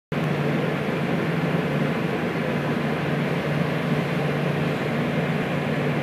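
A steady, loud engine drone with a low hum under an even rushing noise, holding level throughout with no breaks.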